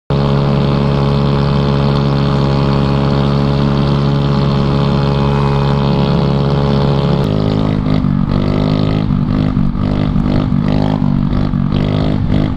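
GY6 150cc four-stroke single-cylinder scooter engine under way, running at a steady note. About seven seconds in the note drops, then rises and falls again and again, about twice a second, as the throttle is worked.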